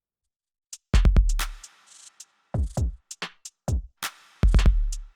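Electronic music with a drum-machine beat: a heavy bass-drum hit about a second in and another near the end, with short sharp ticks between them.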